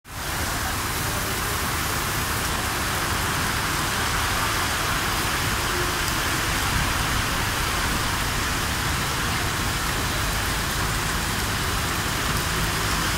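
Heavy rain falling steadily on a railway platform and the roof canopy overhead, an even hiss with a low rumble underneath.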